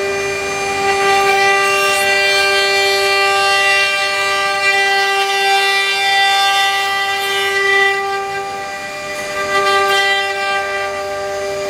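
CNC lathe-engraving machine's spindle running with a steady high-pitched whine, over a hiss of noise, dipping slightly in level about three-quarters of the way through.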